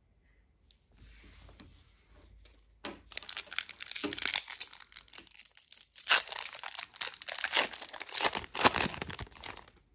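Foil booster-pack wrapper crinkling and being torn open, starting about three seconds in as a dense run of crackles and rips.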